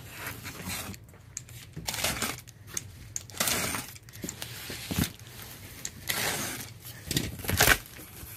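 Utility knife slitting the packing tape along a cardboard box's seams, then the cardboard flaps being pulled open, making a series of short scraping, tearing sounds about a second apart.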